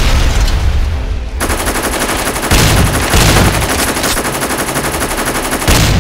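Dubbed war-film sound effects: a heavy explosion rumbling in the first second or so, then sustained rapid machine-gun fire, with another loud blast near the end.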